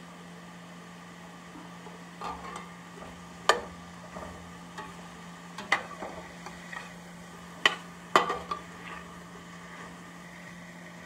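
Metal spatula stirring sautéing vegetables in a stainless steel pot, scraping the bottom and clanking sharply against the pot about four times, with a light sizzle. The stirring starts about two seconds in.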